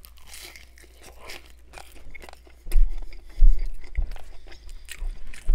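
Close-up crunching bite into a toasted grilled bacon-and-cheese sandwich, then chewing with crisp crackles. A few dull low thumps come about halfway through and again near the end.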